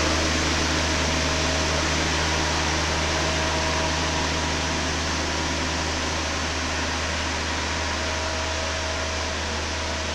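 IDM Fumimatic horizontal-boom greenhouse sprayer running steadily while spraying: a constant machine hum with a hiss of spray over it, slowly fading as it moves away.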